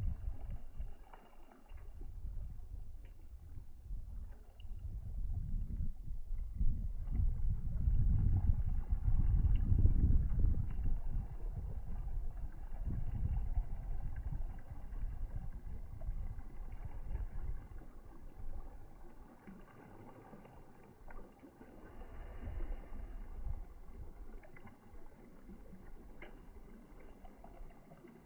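Wind buffeting the microphone: a low rumble that swells into a strong gust about a third of the way in, then dies down to a softer rumble.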